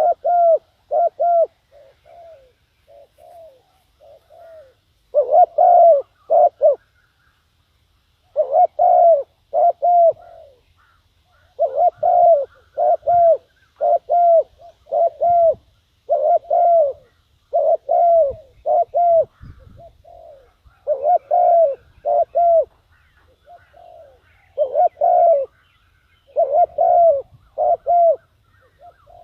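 Spotted dove cooing over and over in phrases of several short, low coos, the call a decoy dove gives to lure wild doves. Fainter coos come between about two and five seconds in, then the loud phrases resume.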